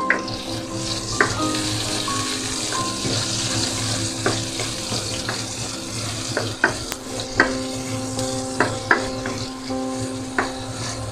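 Diced onion and ginger sizzling in hot oil in a nonstick wok, stirred with a slotted spatula that clicks and scrapes against the pan a dozen or so times.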